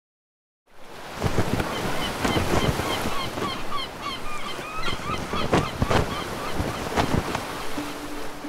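Wind gusting and waves breaking on the shore, with many short repeated bird calls over them; the sound begins after a brief silence. A steady music note comes in near the end.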